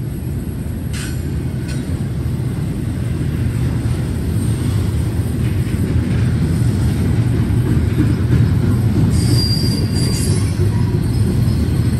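BNSF double-stack intermodal freight train rolling past: a steady low rumble of steel wheels on rail that grows slowly louder, with a brief high wheel squeal about nine seconds in.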